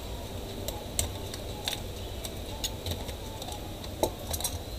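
Scattered light clicks and taps of hands handling the plastic and metal parts of an opened HP laptop chassis, roughly one a second, over a low hum.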